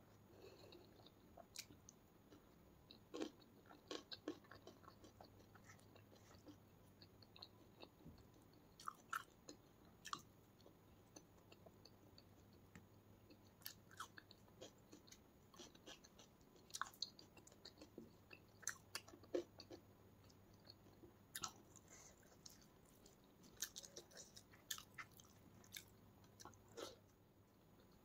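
Close-miked chewing and mouth sounds of a person eating rice and egg curry by hand: soft, wet clicks and smacks scattered irregularly, a few at a time with short pauses between.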